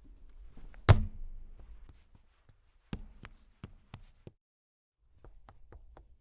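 Hand-made Foley sound effects: one heavy thump with a short low ring about a second in, then a quick run of sharper knocks, and faint quick taps near the end.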